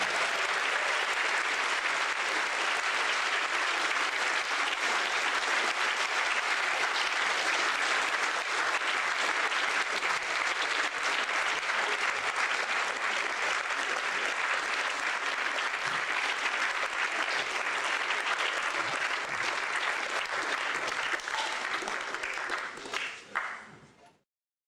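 Large cinema audience applauding steadily, thinning out and dying away near the end before the sound cuts off.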